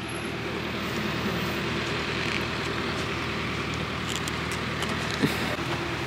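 Steady outdoor background noise: an even hiss with a low steady hum underneath and a small knock about five seconds in.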